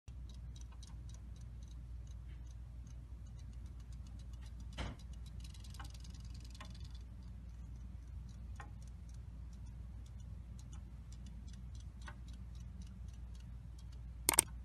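Siamese cats lapping water from a glass container: a quick, slightly uneven series of soft ticks, about three to four a second, over a low steady hum. A sharp click comes near the end.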